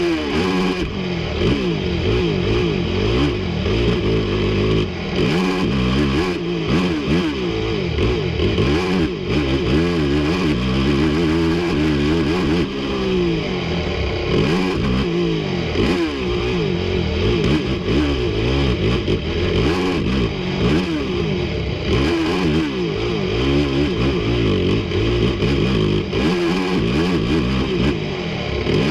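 Yamaha YFZ450R quad's single-cylinder four-stroke engine revving hard up and down, with pitch rising and falling constantly as the ATV races around a motocross track, heard from a camera mounted on the machine.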